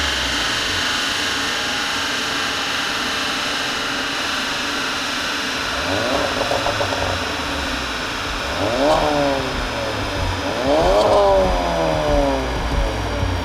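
Stage-2-tuned Volkswagen Golf R's turbocharged 2.0 TSI four-cylinder running on a dynamometer. Its pitch settles after a fall, then it revs up and drops back three times, about six, nine and eleven seconds in, over a steady high whine.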